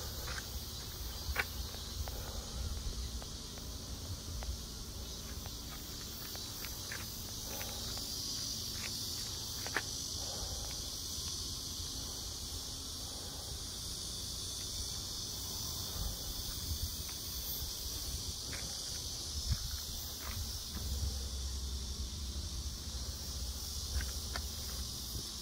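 Steady high-pitched chorus of summer insects droning without a break, with a few scattered clicks of footsteps and phone handling and a low rumble underneath.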